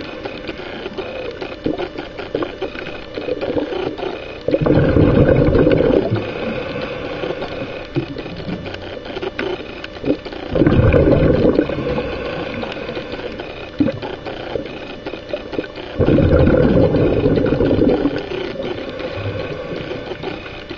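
A scuba diver breathing through a regulator underwater: three loud bursts of exhaled bubbles, each lasting one to two seconds, about every six seconds, with quieter crackling and hiss of water between them.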